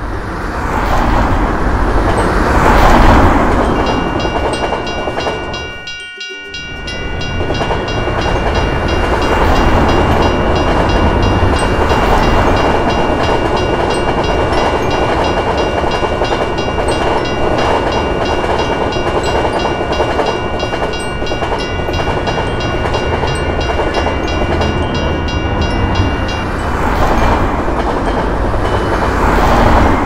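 Passenger train rolling past a railroad crossing, its wheels rumbling and clacking over the rails. A crossing bell rings at an even beat over it and stops a few seconds before the end as the gates go up.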